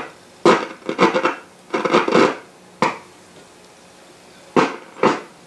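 Bursts of crackling noise from the 1937 Sears Silvertone tube radio's speaker as its tuning capacitor is turned to the end of the band, in irregular spurts several times. The crackle is a fault in the tuning capacitor, which the repairer traces to a bent or loose plate at the end.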